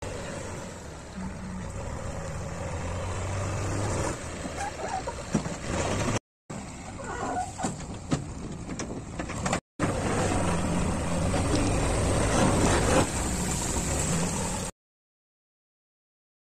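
JCB backhoe loader's diesel engine running and revving under load, with knocks and clatter as soil is tipped from the front bucket into a lorry. It is heard in three cut-together stretches that break off abruptly.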